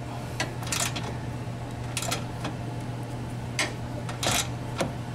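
3/8-inch hand ratchet clicking in short, uneven strokes as a suspension bolt is snugged down by hand, over a steady low hum.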